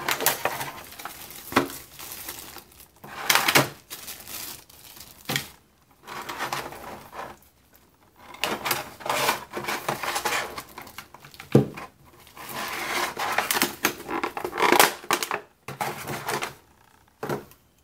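Plastic packaging crinkling and rustling in irregular bursts, with scattered clicks and knocks, as a gaming headset and its cables are taken out of the box.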